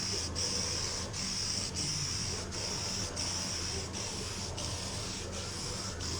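Hand sanding body filler on a steel fender: steady back-and-forth scratchy strokes that dip at each turn, about three strokes every two seconds.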